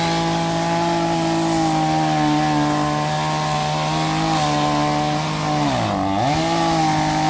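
Chainsaw held at high revs, a steady engine whine, with the revs dropping sharply and picking back up about six seconds in.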